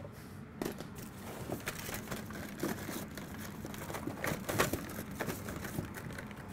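Faint rustling and small, scattered clicks of hard objects being handled and moved about while someone rummages for a tool.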